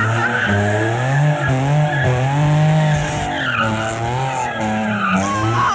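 Infiniti G35 coupe with a swapped-in VQ35HR V6 drifting, its engine revs rising and falling, with the rear tires squealing and skidding as they spin and smoke.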